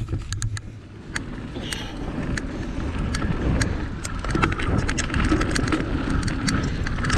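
Bicycle rattling and clicking over a bumpy trail, with a low rumble of wind on the microphone that grows louder in the first few seconds as the ride speeds up.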